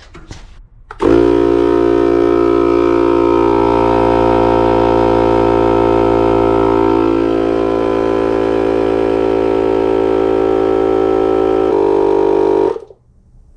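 Air compressor motor running steadily with a constant hum; it starts abruptly about a second in and cuts off suddenly near the end.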